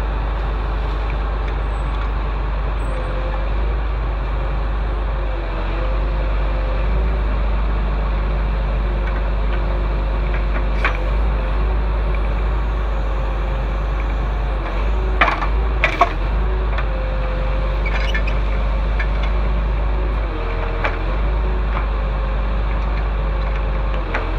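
Heavy vehicle engine running steadily with a deep rumble and a slightly wavering drone, with a few sharp clicks about two-thirds of the way through.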